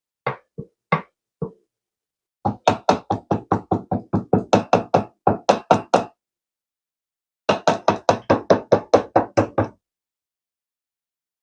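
Rapid knocking on a container, as the last of the blue cheese is knocked out into the dressing. A few scattered knocks come first, then two fast runs of about five knocks a second.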